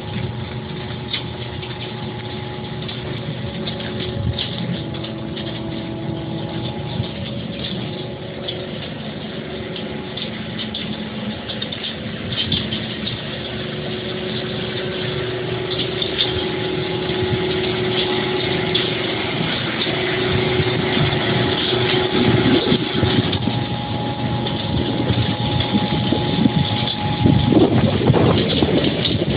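Heavy machinery in a concrete block plant running steadily: a continuous mechanical drone with humming tones that shift in pitch now and then, growing louder toward the end.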